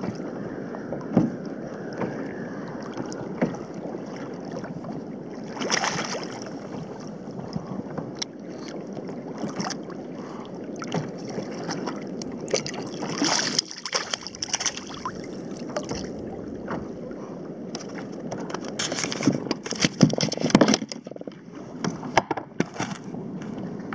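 Small waves lapping and sloshing against a plastic sit-on-top kayak, with scattered knocks and clicks from fishing gear being handled, busiest about twenty seconds in.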